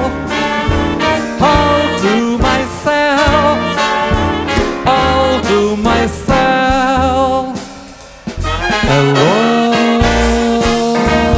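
A swing jazz band with trumpet, trombone and saxophone over piano, bass and drums, and a man singing in front of it. About eight seconds in the music drops away briefly, then the whole band holds a long sustained chord.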